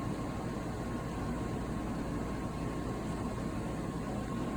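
Steady background noise: a low hum and an even hiss with a faint, steady high tone, and no distinct sounds.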